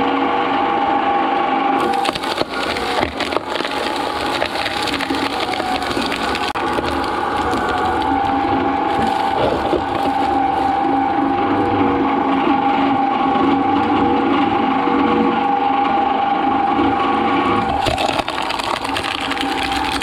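Twin-shaft shredder's hooked cutters crushing and tearing apart a coconut over a steady machine whine. The cracking and crunching of shell and husk starts about two seconds in and stops near the end.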